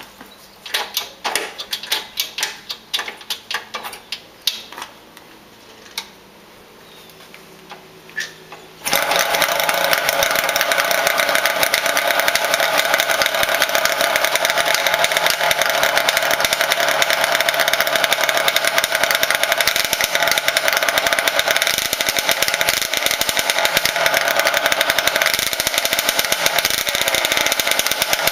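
Yamaha YL1's 100cc two-stroke twin racing engine with a GYT kit. The first nine seconds hold scattered clicks and knocks while the bike is readied; then the engine catches abruptly and runs loud and steady.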